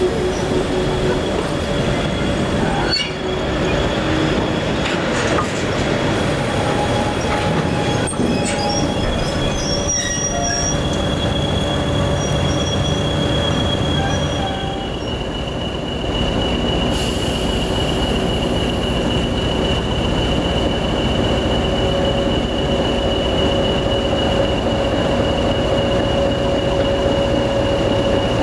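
Train of tank wagons and Class 20 diesel locomotives rolling slowly past close by, its wheels squealing with steady high-pitched tones over a continuous rumble; the squeal drops slightly in pitch about halfway through.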